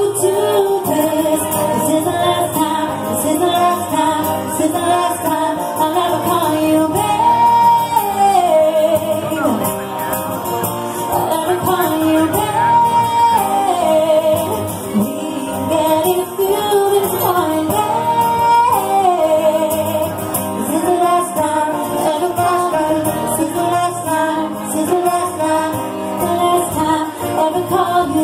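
A woman singing a song live, accompanied by two strummed acoustic guitars.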